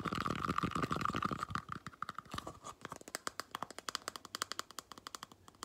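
Fingers scratching and then tapping rapidly on a plastic container held close to the microphone: first a dense scratchy crackle, then quick sharp taps, about eight to ten a second, from about halfway in.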